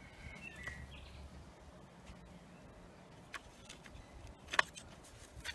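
Quiet background with a bird chirping once near the start and a few light clicks from clutch plates being handled, the sharpest about four and a half seconds in.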